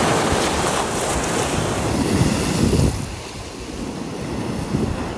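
Stormy lake waves breaking and washing over a rocky shore, with wind buffeting the microphone. The surf is louder for the first three seconds, then drops a little.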